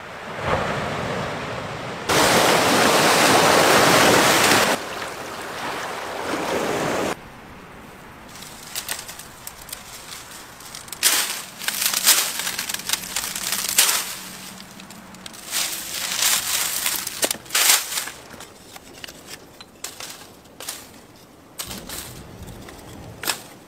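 Sea surf washing onto a sandy beach, the noise jumping in level abruptly a couple of times. About seven seconds in it gives way to the crackling rustle and snapping of dry palm fronds being torn off a palm and broken up.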